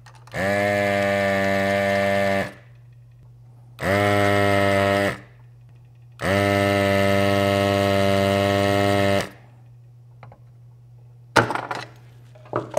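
Electric desoldering gun's built-in vacuum pump buzzing in three trigger pulls, about two seconds, one second, then three seconds long, as it sucks molten solder off circuit-board joints. A couple of sharp clicks near the end.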